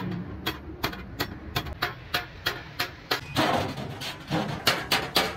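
Hand hammer striking sheet metal on a steel stake anvil: repeated sharp metallic blows, about three a second, each with a short ring.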